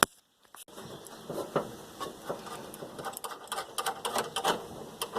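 Irregular metallic clicks and clinks of hand tools as a socket is swapped out, with quicker runs of clicking in the second half like a ratchet being worked.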